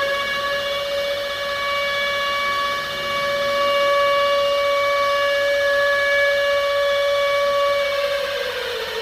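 Civil defence siren holding a steady wail, then sliding down in pitch near the end as it begins to wind down.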